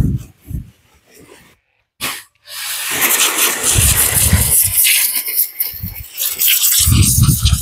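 Pressure washer's water jet hissing as it blasts soil off the root ball of a dug-up mai vàng tree. The spray is nearly silent at first and starts hissing steadily about two and a half seconds in.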